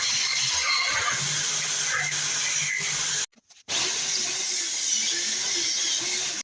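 Wood lathe spinning a workpiece with a tool or abrasive working the wood, a steady loud hiss over a faint motor hum, cut off for about half a second just after three seconds in.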